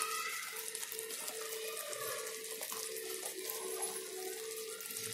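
Thick tamarind and jaggery chutney simmering in a steel kadai: a steady hiss with many small bubble pops. A faint hum comes and goes underneath.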